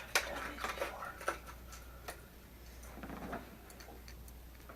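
Scattered light clicks and taps, mostly in the first two seconds, then a soft rustle about three seconds in: a hard plastic square-bill crankbait and its packaging being handled.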